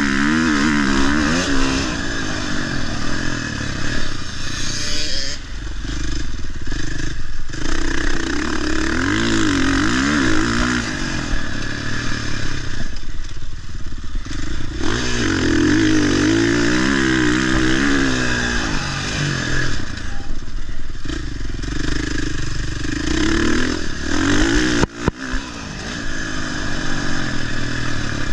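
Motocross dirt bike engine being ridden around a track, the revs climbing and dropping over and over as the throttle is worked, with several short lifts off the throttle and a brief sharp cut about 25 seconds in.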